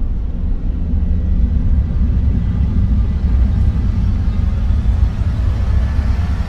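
A steady, deep rumble that fills the low end, with faint thin tones above it.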